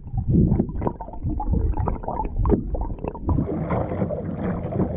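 Muffled gurgling and sloshing of lake water around a submerged action camera beside a kayak. A little past halfway it changes to the open-air sound of kayak paddling, with water splashing and a steady hiss.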